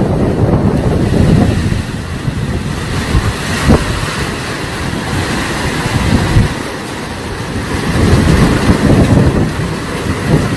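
Strong storm wind gusting and buffeting the microphone, a dense rushing noise that swells and eases in waves.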